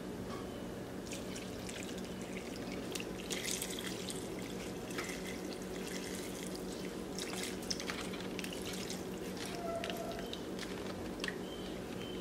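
Chicken broth pouring from a carton into a pot of vegetables and water, a steady trickling splash, over a faint steady hum.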